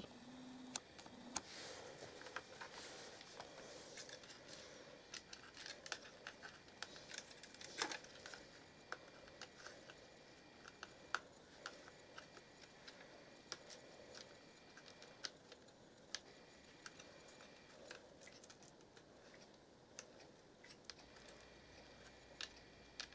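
Faint, scattered small clicks and ticks of fingers pulling thin cables out of their routing clips on a laptop's chassis, most frequent in the first half.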